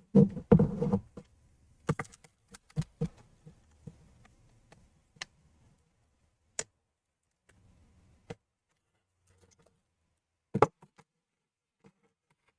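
Scattered sharp clicks and light knocks of laptop parts being handled as the new display's hinges are slid into a MacBook Air's base, irregularly spaced and thinning out, with the loudest knock near the end.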